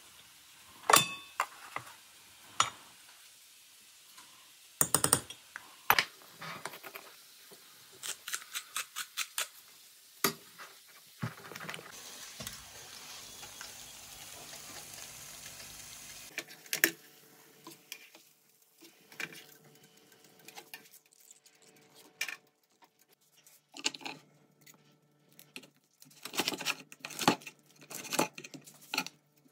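Spoons clinking and scraping in a glass bowl as a sauce is stirred. Then chicken thighs sizzle steadily on an electric contact grill for a few seconds. After that comes a run of sharp knocks as the grilled chicken is cut on a plastic cutting board.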